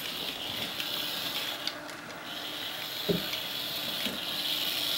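Small remote-control toy car's electric motor and gears whirring with a steady high whine, cutting out briefly about two seconds in, with a single knock about three seconds in.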